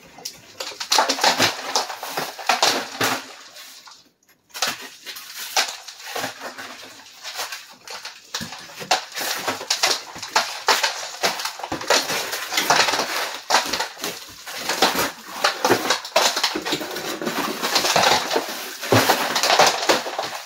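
Horsehair plaster being broken and pulled off wooden lath by hand and with a hammer: repeated cracking, scraping and clattering as chunks break away and fall, with a short pause about four seconds in.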